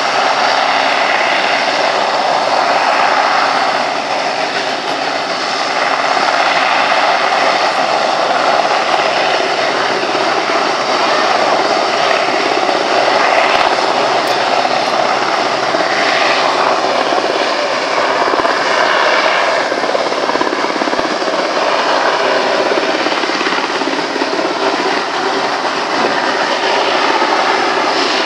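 Westland Sea King helicopter in flight: its turbine engines and rotors make a loud, steady drone.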